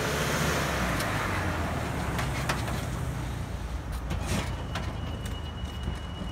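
Van running, heard from the cargo area beside its strapped-down water tank: a steady low rumble with a few sharp knocks and rattles, and a thin high whine that begins about two-thirds of the way through.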